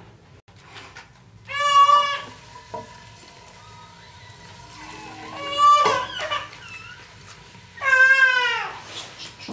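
A domestic cat meowing three times, each meow drawn out and bending in pitch, a few seconds apart.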